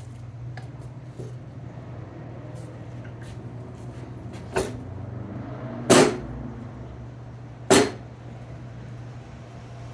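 Three sharp metal-on-metal hammer blows, the last two loudest with a brief ring, driving a lifted wheel bearing inner race back down on a 1991 Honda Civic front knuckle and hub, over a steady low hum.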